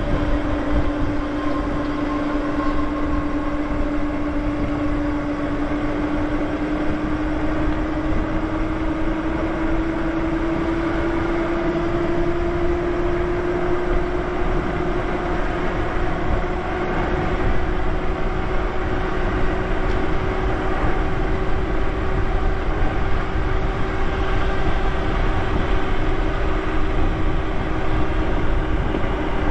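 Electric bike's motor whining steadily while riding, its pitch rising slowly as the bike speeds up, over wind and tyre noise.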